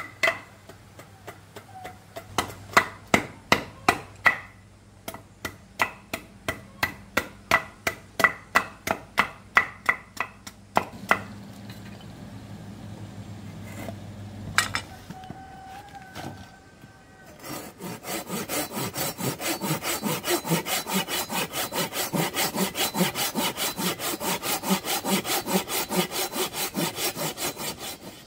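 Sharp knocks on wood, about three a second, for the first ten seconds or so; then, after a pause, a coarse-toothed hand saw cutting a wooden block with quick, even back-and-forth strokes for the last ten seconds.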